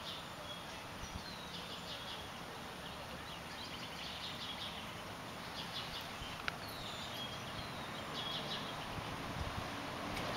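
Birds chirping in short runs of calls over steady outdoor background noise, with one sharp click about six and a half seconds in.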